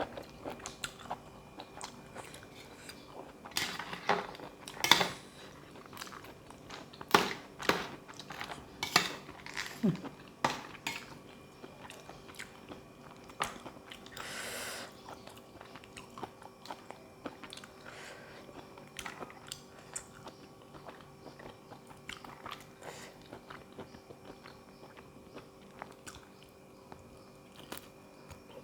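A person chewing and biting crunchy food close to the microphone, a spicy seafood salad eaten with raw vegetables: loud, sharp crunches through the first third, then quieter, sparser chewing. A short rushing noise comes about halfway through.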